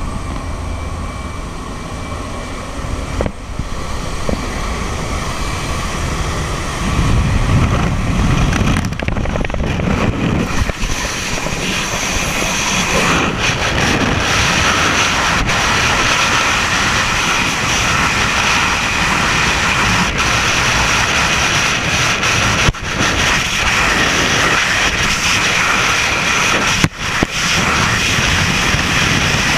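Light-aircraft engine noise at the open door, then, from about seven seconds in, a steady, louder rush of freefall wind blasting across the camera microphone.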